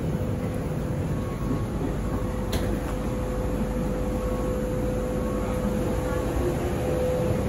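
Steady machinery hum of a parked airliner at its boarding door, with a constant whine held on one pitch. A single sharp click about two and a half seconds in.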